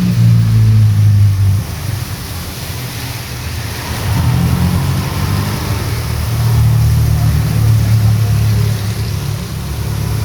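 Heavy rain hissing on a street while motor vehicles drive past, their engines a low hum that swells and fades. It is loudest in the first second and a half and builds again from about four seconds in.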